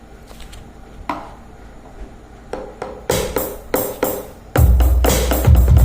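Roland SPD-SX sampling pad being played, its pads triggering drum-kit samples: a few light taps at first, then a run of irregular strikes from about three seconds in, with heavy bass-drum hits joining about a second later. The repaired unit is being tried out.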